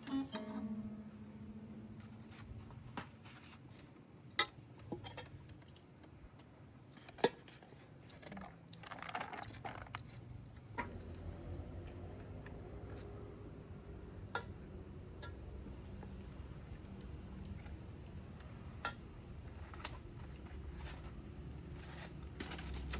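Steady high-pitched insect chorus, typical of crickets, with a few sharp clicks or knocks scattered through it.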